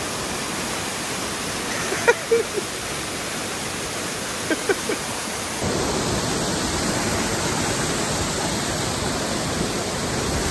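Waterfall: a steady rush of falling water, with a couple of brief vocal yelps about two and five seconds in. About halfway through the rush steps up suddenly and becomes louder.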